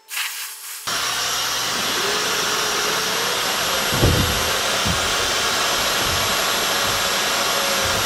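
Dyson Supersonic hair dryer running on its low fan setting with no attachment: a steady rush of air with a faint high whine, starting abruptly about a second in. A brief low thump comes about halfway through.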